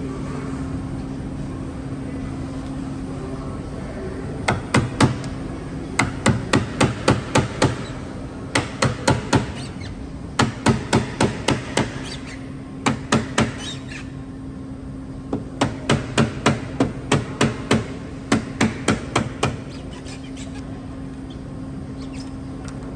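Small plastic mallet tapping a plastic strip in along the edge of a car's quarter glass, in quick bursts of sharp taps about three to four a second, over a steady low hum.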